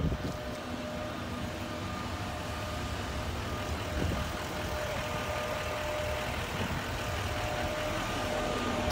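Fire truck's diesel engine idling: a steady low rumble with a steady hum above it.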